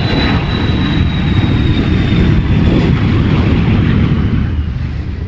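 Airplane engine noise, loud and rumbling, with a thin high whine that slowly falls in pitch.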